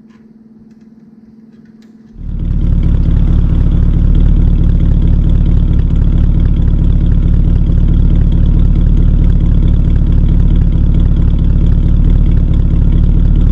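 Hudson car's engine idling, heard at the tailpipe: a loud, steady, low exhaust note that comes in abruptly about two seconds in, after a faint hum.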